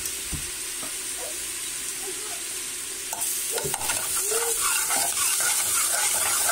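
Chopped garlic sizzling in hot oil in a pot, the first step of cooking rice. About three seconds in, a spoon starts stirring and scraping the pot bottom, and the sizzle gets louder.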